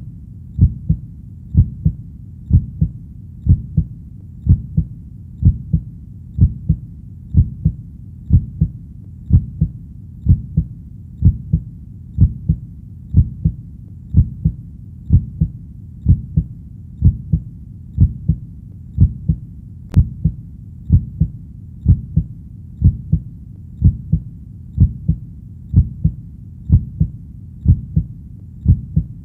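A heartbeat playing as a steady lub-dub: paired low thumps, about one beat a second, at an even resting rhythm, over a faint low background rumble.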